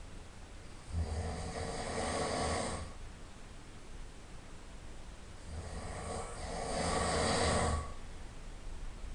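A person snoring in sleep: two long snores of about two seconds each, the first starting about a second in and the second about four and a half seconds later, with quieter breathing between them.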